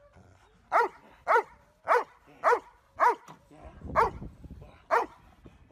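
Young Doberman giving sharp warning barks, seven in all, roughly two a second with a short pause partway, each bark dropping in pitch. A low rumble sounds briefly about four seconds in.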